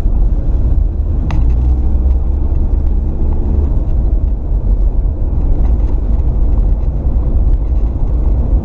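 Toyota RAV4's 3S-FE inline-four engine running under throttle, with a steady, deep exhaust sound from a leaking flex pipe in the downpipe.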